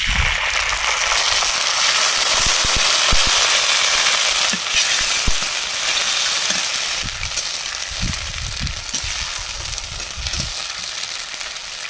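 Wet ground spice paste (onion, garlic, chilli, cumin) hitting hot oil and fried onions in a kadhai: a loud sizzle that bursts up at once and slowly eases off. A flat metal spatula stirs and scrapes the pan, with low knocks in the second half.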